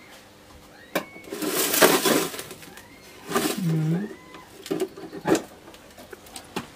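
A metal tin box being handled and opened: knocks, scraping and rattling of the tin, with faint bird chirps behind.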